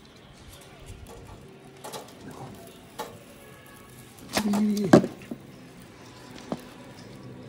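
A short pitched animal cry, about half a second long, near the middle, ending in a sharp click, among light taps and clicks.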